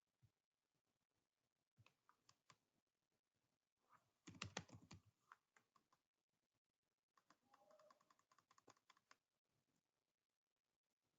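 Faint computer keyboard typing: three short runs of keystrokes, the loudest just over four seconds in.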